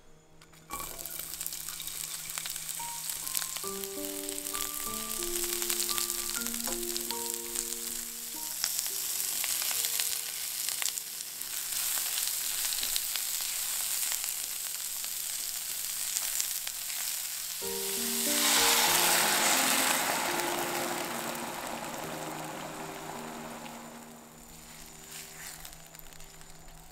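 Sliced onion and carrot sizzling as they are stir-fried with a spatula in a hot frying pan. A little past two-thirds through, the sizzle swells sharply as the sweet-and-sour sauce hits the pan, then dies down.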